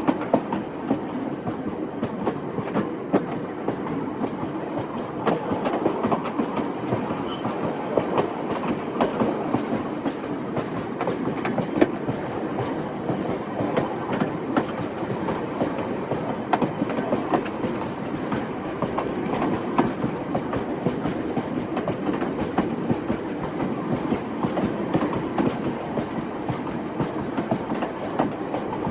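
Train sound effect: a train running steadily on the rails, a continuous rumble with scattered clicks of the wheels over the track.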